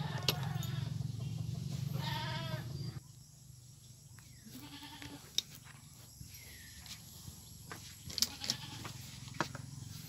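A goat bleats once in the background about two seconds in, over a low steady hum that stops about three seconds in. Later come several sharp clicks and clinks as pliers and a small glass jar are handled.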